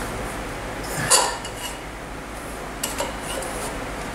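Metal tool scraping and clinking inside a moped wheel hub as the central spacer is pushed aside to reach the wheel bearing. The loudest scrape comes about a second in, a lighter clink near three seconds.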